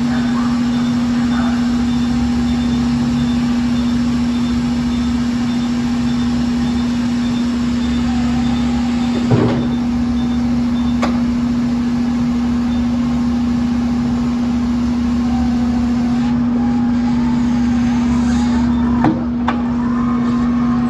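Crown electric stand-up reach truck lowering a pallet from a high rack: a steady hum, with a repeating high beep through the first part. A few short knocks come around the middle and again near the end.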